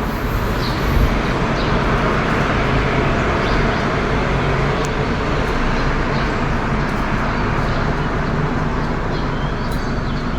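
Steady road traffic noise, an even rumble with no single vehicle standing out, with a few faint high chirps over it.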